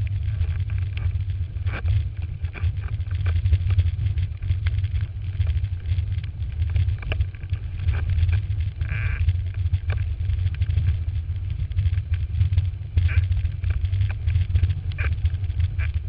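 Wind buffeting the microphone of a camera mounted on a windsurf boom: a heavy, steady low rumble. Water rushes and hisses off the board underneath, with a few short splashes.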